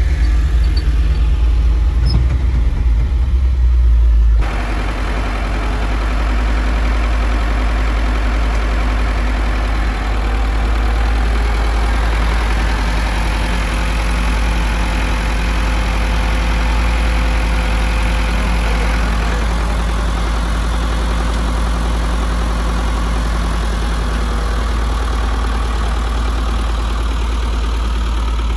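Vehicle engine running steadily under load, a continuous low rumble. About four seconds in the sound changes abruptly and turns fuller and brighter.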